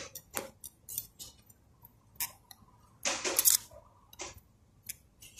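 Feeler gauge blade clicking and scraping metal on metal as it is slid and wiggled between a camshaft lobe and a valve tappet to check valve clearance: irregular light ticks, with a longer, louder scrape about three seconds in.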